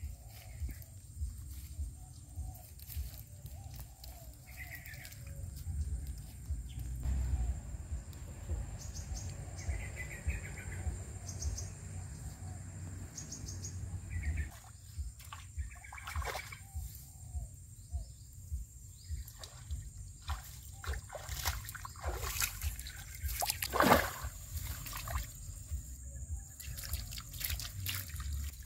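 Rustling and handling noise as someone moves through grass and leaves, with a few faint bird chirps and a sharp knock a few seconds before the end. Near the end, water trickles and splashes as hands work in shallow pond water.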